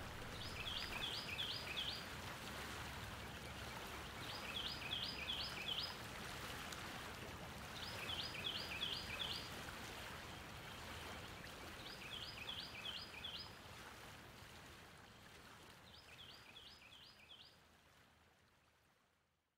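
Outdoor ambience: a songbird repeats a short phrase of about five quick, high notes every four seconds or so over a steady rushing noise, and everything fades out near the end.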